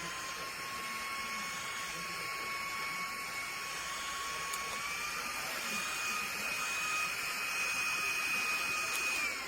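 Small battery-powered portable fan running: a steady motor whine over a rush of air. The pitch steps up about five seconds in as the fan speeds up, then starts to fall away right at the end as it winds down.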